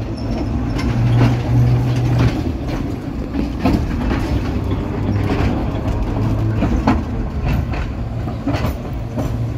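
FVV CSM prototype articulated tram no. 3720 pulling away past close by. A low steady hum is loudest in the first couple of seconds, and the wheels make irregular clicks and clunks on the track.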